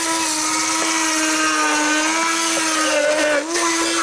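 Handheld stick blender running steadily while puréeing raspberries, a constant motor whine whose pitch wavers slightly about three and a half seconds in.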